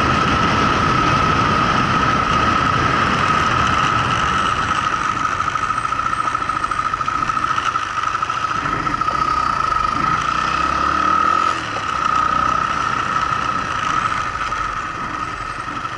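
Motorcycle engine running at road speed with wind rushing past, carrying a steady high whine; the sound dips briefly about two-thirds of the way in.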